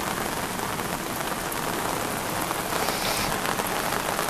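Heavy rain hammering down: a steady dense hiss of countless drops striking.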